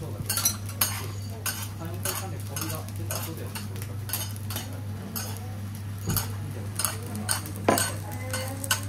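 Metal teppanyaki spatulas clinking and scraping on an iron griddle in irregular taps, over a faint sizzle of food cooking and a steady low hum.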